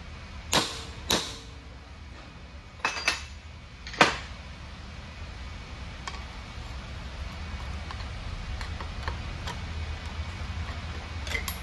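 Hammer blows on the steel drive yoke of a truck differential thru-shaft held in a bench vise, about five sharp ringing strikes in the first four seconds, followed by faint scraping and ticking as a screwdriver works around the yoke's rim to get the old wear ring off.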